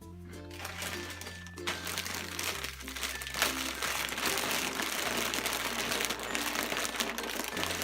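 Crinkling and crunching from a bag of kettle-cooked potato chips, starting about two seconds in and running on densely, over background music with a steady bass line.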